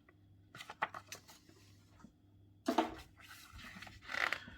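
Paper handling as a kit's instruction booklet pages are turned: a few light ticks, then two short, louder rustles about three and four seconds in.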